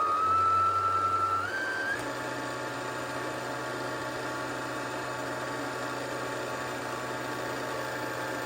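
Sewing machine motor running at a steady high speed with a constant whine, winding a bobbin. The pitch steps up twice in the first two seconds as it speeds up, then holds steady.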